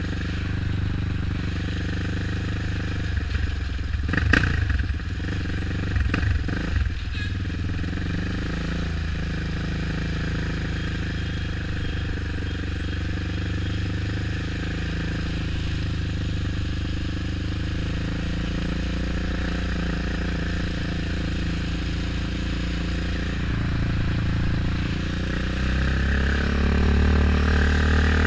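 Motorcycle engine running steadily at low speed, heard from the bike itself, with a few knocks about four to seven seconds in. The engine note rises near the end as the bike accelerates.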